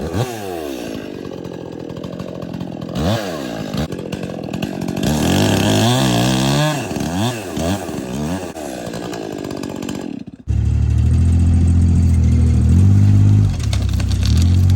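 Stihl chainsaw revving up and down repeatedly as it cuts, its pitch rising and falling. About ten seconds in it breaks off abruptly and a louder, steady low-pitched engine rumble takes over.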